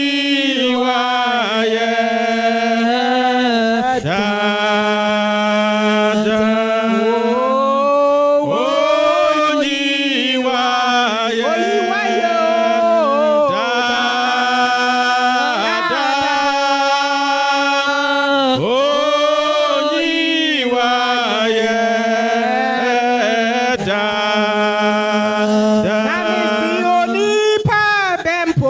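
A woman singing a Twi worship song solo into a microphone, in long held notes that bend and slide between phrases. A steady low sustained note runs underneath.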